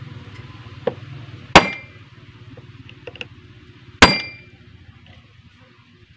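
Two hard metal-on-metal hammer blows, about two and a half seconds apart, each ringing briefly. They are driving a bar set against a mini chainsaw's clutch to knock it loose.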